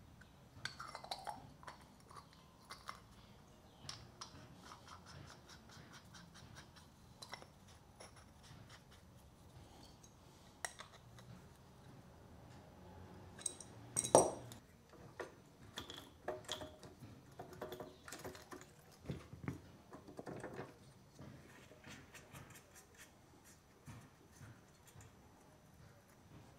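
Small metal carburettor parts and hand tools being handled at a workbench: scattered clicks and clinks of metal on metal and against a metal tray, with one sharper knock about halfway through.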